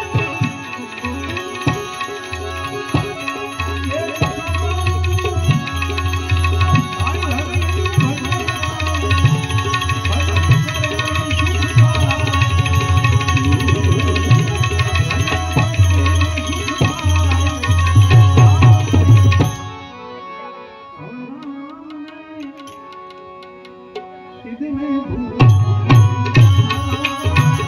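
Live Indian devotional bhajan music: harmonium, tabla, a keyed Indian banjo and small hand cymbals, with a male singer. About 20 seconds in the tabla and cymbals stop and a quieter melodic passage follows; about 25 seconds in the full rhythm comes back in.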